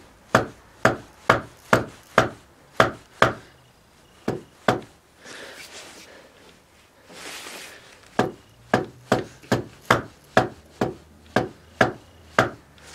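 Red plastic mallet tapping a rough cast iron casting clamped on a milling machine table, knocking it forward into line against a dial indicator. Sharp taps about two a second, a pause of a few seconds in the middle, then another run of taps.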